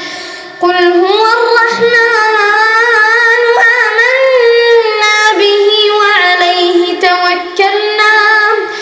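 A single high voice chanting Quran recitation in melodic tajweed style: after a brief pause, one long ornamented phrase drawn out over several seconds, its pitch gliding up and down.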